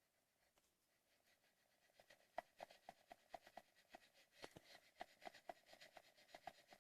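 Faint, quick knocking clicks from a 2009 Pontiac Vibe's electric power steering column as the shaft is worked back and forth. The clicks start about two seconds in and come about four a second, somewhat irregularly. They are the steering knock from play between the steel worm and the plastic worm gear, whose plastic has deformed with age.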